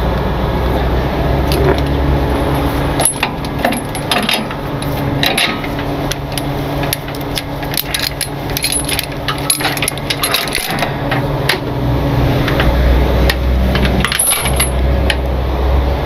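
Steel safety chains clinking and rattling as they are handled and hooked to a truck's frame, the clinks coming thick and irregular through the middle. A steady low hum runs underneath.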